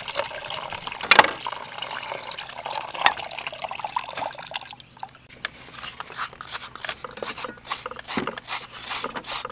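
A thin stream of coconut water pours into a plastic pot, with two sharp knocks about one and three seconds in. From about halfway on, a wooden-handled scraper makes quick, short scraping strokes as it scoops the white flesh out of a coconut half.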